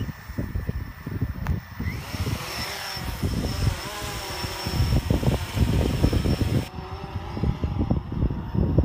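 Blade quadcopter's electric motors and propellers buzzing as it lifts off the grass and hovers low, the motor whine rising in pitch about two seconds in. Low gusty buffeting on the microphone.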